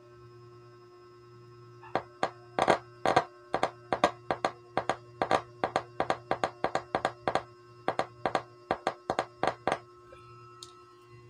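Repaired 10-inch subwoofer giving a quick, irregular series of sharp clicks and pops, about three or four a second for some eight seconds, as it is tested at its terminals. A steady low hum runs underneath.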